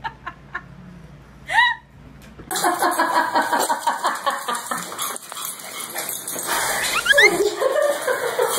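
Small dog yipping and barking in short excited cries, with a quick rising yelp about seven seconds in. The sound starts abruptly about two and a half seconds in, after a single short rising-and-falling call.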